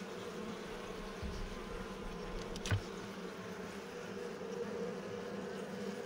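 Honeybees buzzing in a steady hum at an open hive being smoked for a honey harvest, with one sharp click near the middle.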